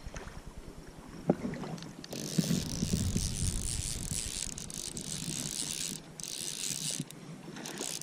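Fly reel's click-and-pawl drag ratcheting in a fast, steady buzz while a hooked fish is played on the fly rod. It starts about two seconds in and breaks off briefly twice near the end, after a single light knock about a second in.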